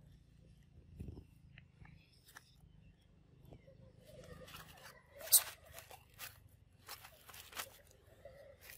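Dry leaves crackling and rustling close to the microphone, with scattered sharp clicks and one loud click about five seconds in, as long-tailed macaques move about in the leaf litter.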